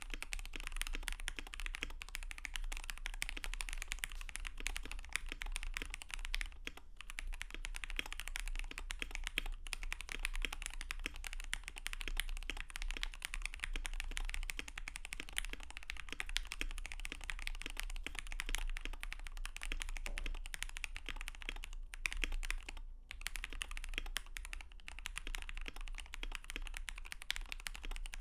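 Fast, continuous typing on a KBD67v2 Lite mechanical keyboard with Gateron Milky Yellow linear switches lubed with Krytox 205g0 and PBT keycaps: a dense run of keystroke clacks, with two short pauses about seven and twenty-three seconds in.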